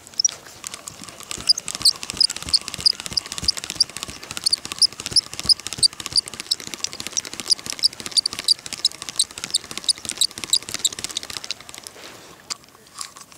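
Fishing reel being wound in, its handle turning with a rhythmic high squeaky tick about three times a second. It stops about eleven seconds in, leaving a few scattered clicks.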